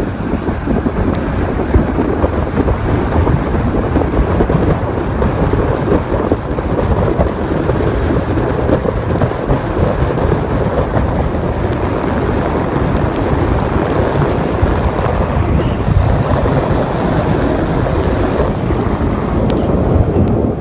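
Steady, loud road and wind noise of a moving car: tyres hissing on a wet road and wind buffeting the microphone.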